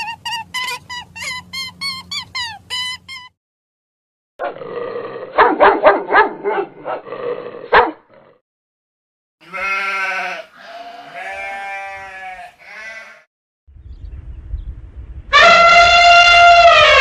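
Animal calls edited one after another: chickens clucking in a run of short notes for about three seconds, then bleating calls, then a loud elephant trumpet near the end, falling in pitch as it stops, over a low rumble.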